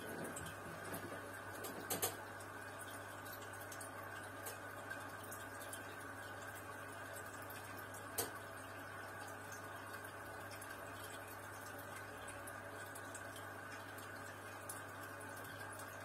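Aquarium sponge filters and an air line bubbling: a steady stream of air bubbles breaking at the water surface over a steady low hum. A few sharp louder pops stand out, about two seconds in and again about halfway through.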